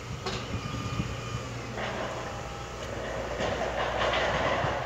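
Heavy earth-moving machinery at work: a diesel engine runs steadily under metallic clanking and rattling. From about two seconds in, a rough scraping rush builds and grows louder.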